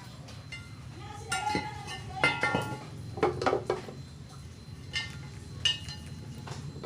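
Metal objects clinking and scraping against metal: a series of sharp clinks, some with a brief ringing, over a steady low hum.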